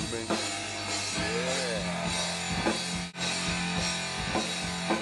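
Stoner rock band playing, with electric guitar and drum kit; a bent note rises and falls about a second and a half in, and the sound drops out for an instant about three seconds in.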